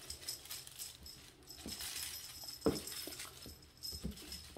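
Kittens playing on a rug: a few soft paw thumps as they pounce and scramble, with light rustling from a feather toy being batted.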